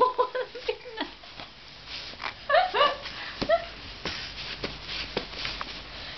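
Babies' voices: a few short, high-pitched squeals and coos, with some light knocks and taps between them.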